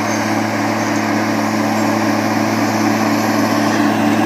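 Diesel engines of a Caterpillar 545C grapple skidder and a loaded Kenworth T800 log truck working hard together at steady revs, a loud, even drone as the skidder pushes the truck uphill.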